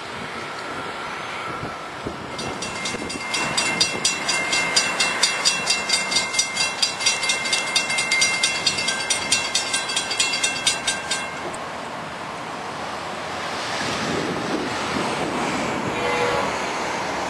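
Railroad grade-crossing warning bell ringing in rapid, even strokes for several seconds, then cutting off abruptly. Road traffic follows.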